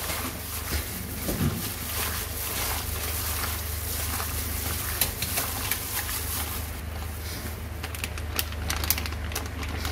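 A plastic-gloved hand squishes and turns battered fish pieces in egg-and-flour batter in a stainless steel bowl, giving wet squelching and glove rustle. From about seven seconds in there is a run of sharp crinkles as a plastic bag of crispy-frying flour is handled over the bowl.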